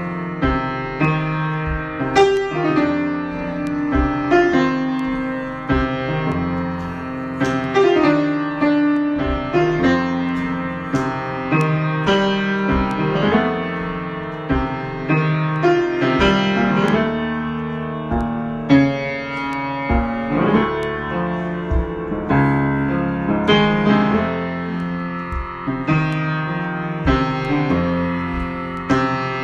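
Improvised solo keyboard music in a piano sound, a steady flow of struck notes left ringing and overlapping into sustained chords.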